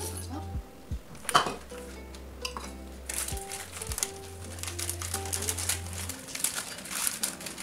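A few knocks and clinks as crushed Oreo cookies are tapped out of a plastic hand-pull chopper into a glass bowl, the loudest about a second and a half in. From about three seconds in, the plastic Oreo wrapper crinkles steadily as it is handled. Background music plays underneath.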